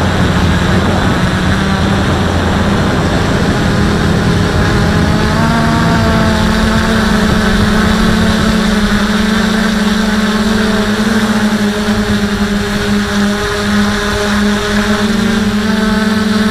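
DJI F450 quadcopter's electric motors and propellers droning, as picked up by a camera mounted on its frame. The drone holds a steady pitch that wavers and steps up slightly about six seconds in.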